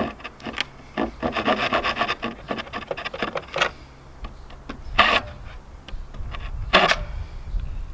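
Hand saw cutting through a Douglas fir board near the end of the cut: a run of quick, short back-and-forth strokes, then two single, louder strokes about five and seven seconds in.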